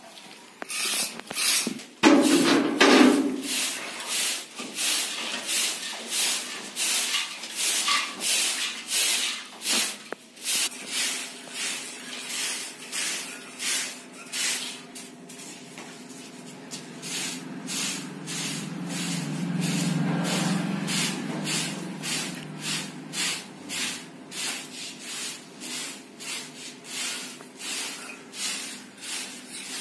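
A small hand tool scraping cement plaster along a ceiling border moulding in short, repeated strokes, about two a second.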